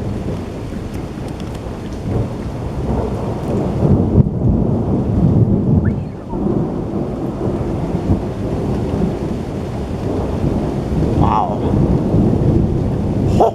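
Thunder rolling and rumbling through a heavy thunderstorm, with steady rain hissing throughout. The rumble swells loudest a few seconds in.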